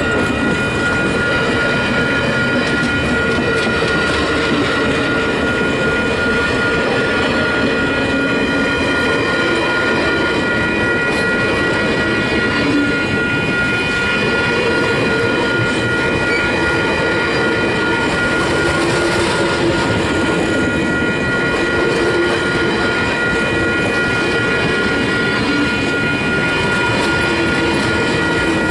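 Rocky Mountaineer passenger train rolling past, its cars rumbling steadily on the rails with a steady high-pitched whine over the rumble.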